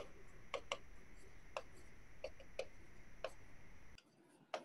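Stylus tapping and clicking on the glass of an interactive whiteboard as a word is handwritten: a string of faint, irregular ticks.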